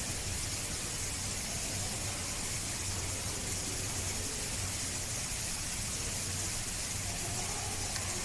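Steady hiss with a low hum underneath: even background noise, with no distinct event standing out.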